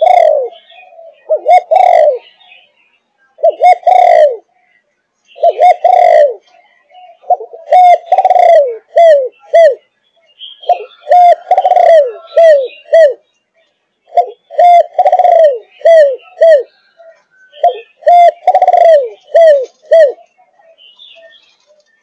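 A 5.5-month-old Malaysian-strain spotted dove (cu gáy) of the 'thúc gù' cooing line, cooing repeatedly. Each phrase is a few short coos around one longer, falling coo. The phrases come about every two seconds at first; from about eight seconds in they grow longer, with extra short coos trailing after, and come every three to four seconds.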